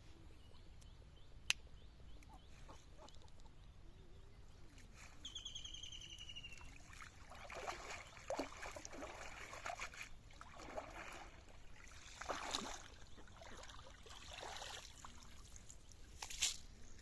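Faint, irregular splashing and sloshing of water, with a short falling bird trill about five seconds in and a sharp click near the start.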